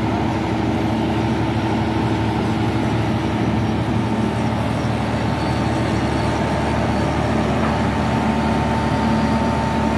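A flash butt rail-welding machine's power unit running steadily, a constant engine drone with a few held tones in it and no welding flash.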